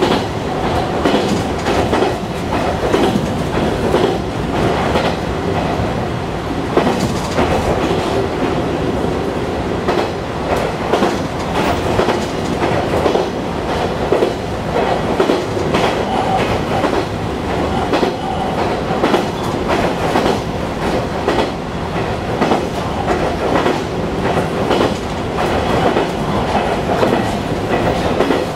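A JR Kyushu 815 series electric train running steadily along the rails, its wheels clicking repeatedly over rail joints, heard from inside the front car.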